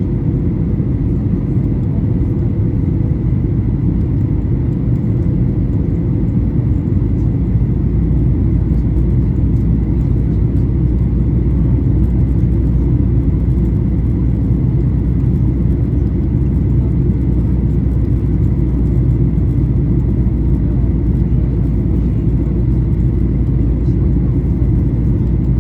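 Steady rumble of the Boeing 737-800's CFM56-7B engines and airflow, heard inside the passenger cabin. It grows slightly louder and deeper about seven seconds in.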